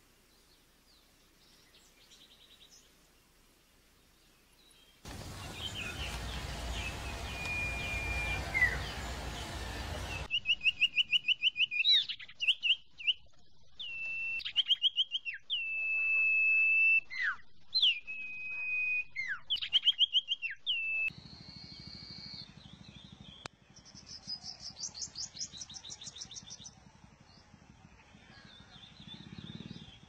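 Common iora (sirtu) singing: bursts of rapid trills, each running into a held whistled note, with sharp downward slurs between them. Before these, a whistled glide rises over loud hiss, and after them come softer, higher chirping phrases.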